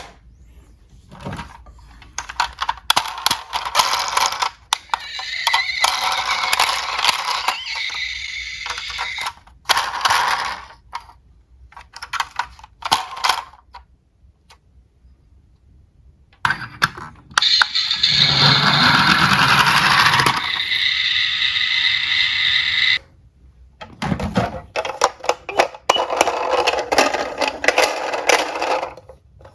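Small diecast toy cars clattering and rolling on a hard track or slope, in several bursts of rattling and sharp clicks with a short quiet pause between them.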